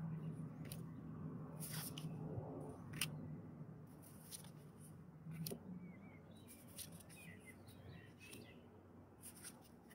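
Faint handling of stiff oracle cards, with short clicks and slides as cards are swapped and shuffled in the hands; small birds chirp a few times in the background.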